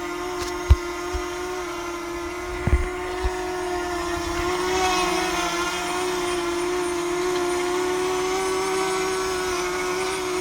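DJI Mini 2 quadcopter hovering, its propellers giving a steady whine made of several tones that waver slightly in pitch. A few brief low thumps come in the first three seconds.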